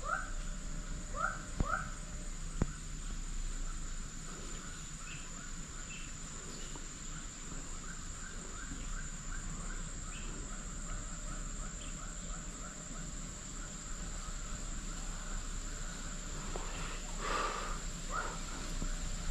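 Jungle streamside ambience: a steady high-pitched insect drone, with a bird repeating short rising calls, quickly in a run through the middle, and a brief louder noise near the end.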